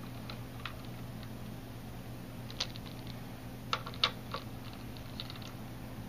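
Small screwdriver working the heatsink retaining screws on the back of a graphics card: a few light clicks of the tip in the screw heads, most of them around the middle, over a steady low hum.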